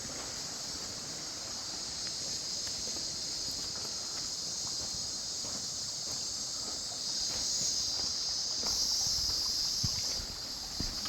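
Steady high-pitched outdoor hiss that grows louder about seven seconds in, with a few faint knocks.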